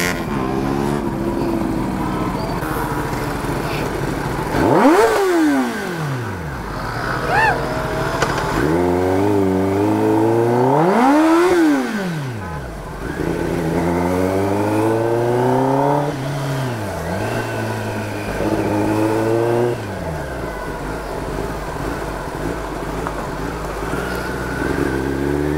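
Kawasaki ZX10R's inline-four engine running as the bike is ridden, its pitch shifting in steps. Two sharp revs rise and fall, one about five seconds in and one about eleven seconds in.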